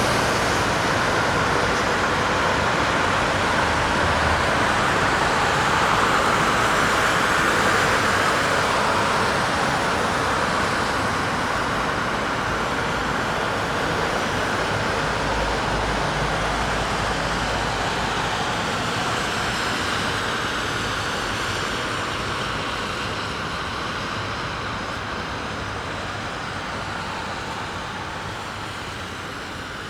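Steady street traffic noise, a continuous wash of passing cars with no single vehicle standing out, slowly fading out over the last ten seconds or so.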